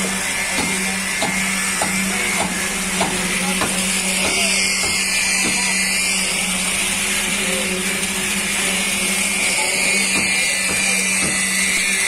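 Construction machinery running steadily: a constant mechanical hum with a hiss above it, and a few light clicks in the first half.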